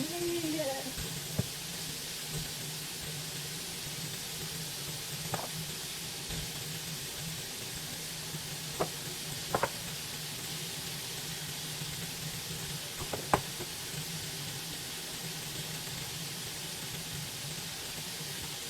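Food sizzling steadily in a frying pan over a low hum, with a few sharp knocks from cookware or utensils, the loudest about two-thirds of the way through.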